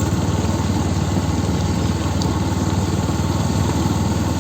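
Two-wheeler engine running steadily while riding along at low speed, with a dense, even low hum and a steady rush of air and road noise over it.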